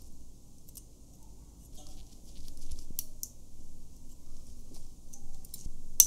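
Light metallic clicking and scratching of steel tweezers on the small gears and parts of a Pentax S3 camera's winding mechanism, in scattered bursts, with one sharp click at the very end.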